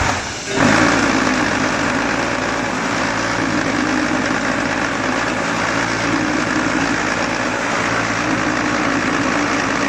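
QTJ4-25D concrete block machine's vibration motors starting abruptly and running with a loud, steady hum and rattle as the mould is vibrated to compact the concrete.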